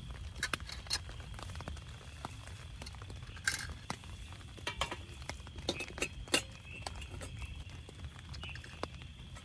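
Rain falling steadily on the tent, with scattered light clicks, taps and clinks as a camping lantern and a screw-on gas canister stove are handled on a metal folding table.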